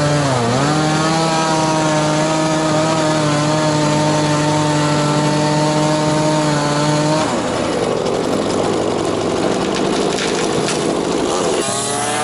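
A power saw running hard and cutting. Its steady whine dips in pitch just after the start as it takes the load and holds for about seven seconds, then turns rough and noisy for about four seconds before the whine returns near the end.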